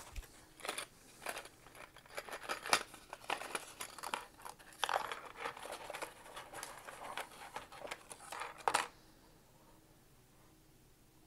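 Kraft-paper hook packet being handled and opened, a run of irregular crinkling and rustling that stops about nine seconds in.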